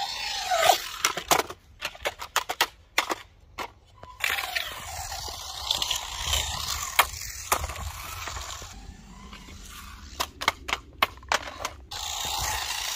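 XRider Flamingo 1/8-scale RC trike driving on skatepark concrete: its motor whine rises and falls with the throttle, over the rough noise of its wheels rolling. Many sharp clicks and knocks are scattered through it, densest from about a second in and again around ten seconds in.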